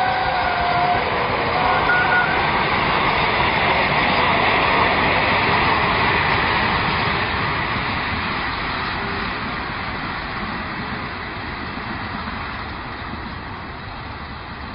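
A steam-hauled passenger train, SAR Class 16DA 4-6-2 locomotive No. 879, running past with its coaches rolling on the rails. The last of a whistle note cuts off about a second in. From about six seconds in, the train noise fades steadily as it draws away.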